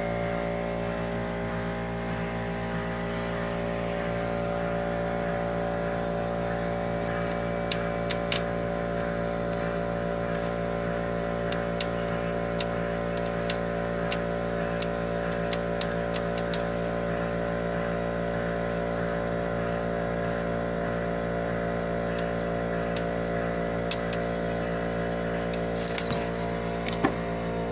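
Ford Mustang's 4.6-litre three-valve V8 idling steadily, with sharp knocks at irregular intervals from about eight seconds in. The owner puts the knock down to a cam follower (roller rocker) in the valvetrain.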